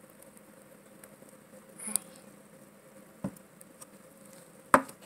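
A few light clicks and taps from a plastic toy figure being handled over a low, steady background hiss, the sharpest near the end.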